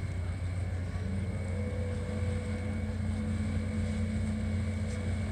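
A car ferry's engines running with a steady low drone as it pulls away from the pier, a steadier hum joining in about a second in.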